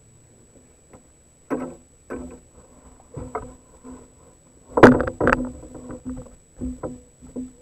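Irregular knocks and bumps on a plastic fishing kayak's hull as gear and body shift in the boat, the hull humming briefly after several of them. The loudest thump comes about five seconds in.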